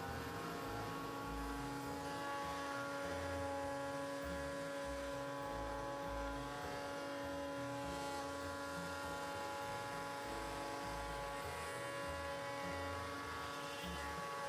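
Small electric power tool motor running at a steady high speed, a whine made of several fixed tones, cutting off abruptly at the end.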